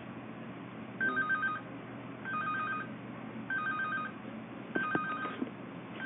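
Electronic telephone ringer trilling: short bursts of a fast warble between two high tones, each about half a second long, repeating about every second and a quarter. A few sharp clicks about five seconds in.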